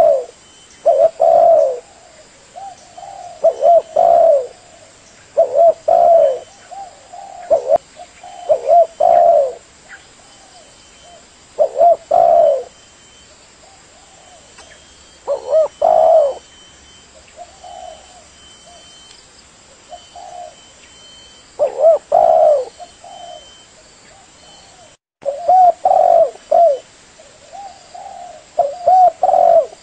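Spotted dove (tekukur) cooing: loud phrases of a few low, falling coo notes repeated every two to three seconds, with softer coos between them. All sound cuts out briefly about 25 seconds in.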